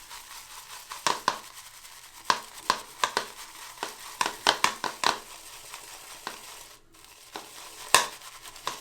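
Synthetic shaving brush working a freshly wetted, flaky shaving soap in a lathering bowl, making irregular wet clicks and squelches. This is the start of bowl lathering, and the lather comes up a little sudsy.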